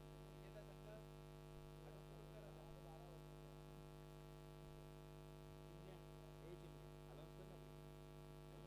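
Near silence: a low, steady electrical mains hum on the audio line, with faint distant voices now and then.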